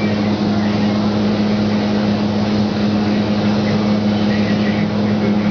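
Steady hum of a paint booth's air handling with the even hiss of a compressed-air spray gun spraying paint.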